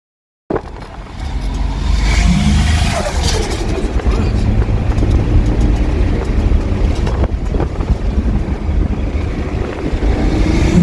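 Turbocharged Holden VL's engine running loudly, starting abruptly about half a second in and building over the next couple of seconds. The engine's ignition timing is badly retarded, which the owners reckon is holding it back.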